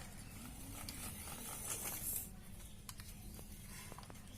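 Faint scraping and rustling over a low hum, with a few light clicks and a short rise in hiss about two seconds in.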